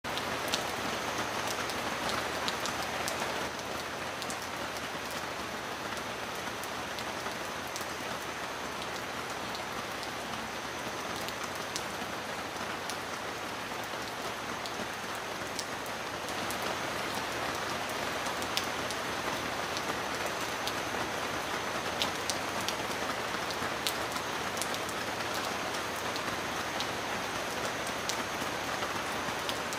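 Steady heavy rain, with many scattered sharp drop ticks over an even hiss; it grows a little louder about halfway through.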